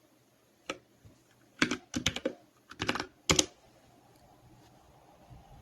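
Typing on a computer keyboard: a quick run of keystrokes in small clusters over about three seconds, which then stops.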